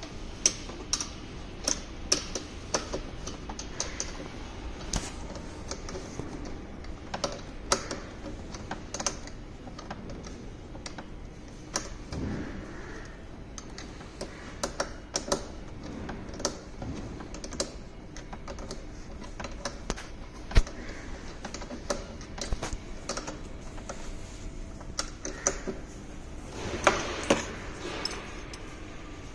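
Steel 12–14 mm double-ended spanner clicking and clinking against nuts and metal brackets as bolts on a scooter's front end are tightened by hand, in many irregular sharp clicks.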